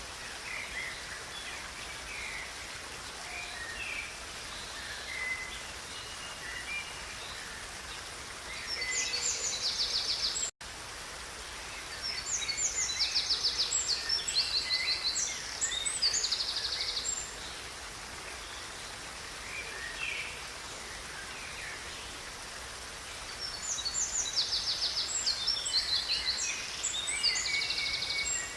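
Songbirds calling and singing over the steady rush of river water: scattered short chirps throughout, and three bouts of fast, high trilled song, the loudest about a third of the way in and again near the end. The sound cuts out for an instant about ten seconds in.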